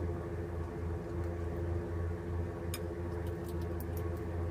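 A steady machine-like hum fills the room, with a few faint, short clicks of eating, chewing and handling food, in the second half.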